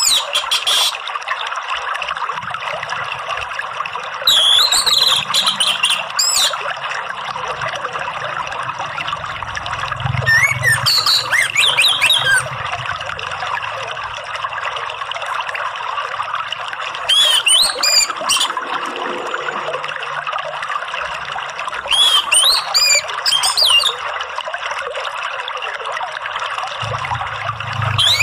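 Running water trickling steadily, with an orange-headed thrush singing short, quick, warbling phrases about every five to six seconds, as in a bird-therapy recording.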